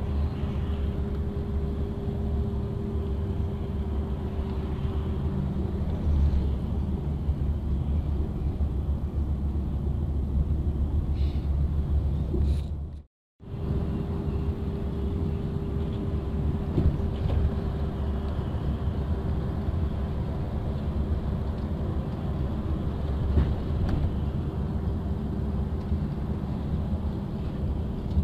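Engine and road rumble heard from inside a vehicle's cabin while driving on the highway: a steady low rumble with a constant hum. It drops out abruptly for under a second about halfway through.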